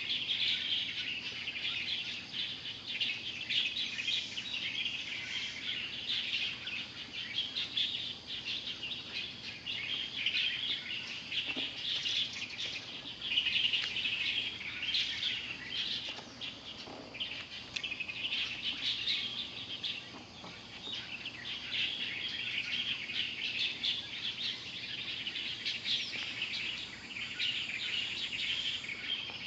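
Small birds chirping and calling continuously in a dense chorus, with a couple of brief lower calls about twelve and seventeen seconds in.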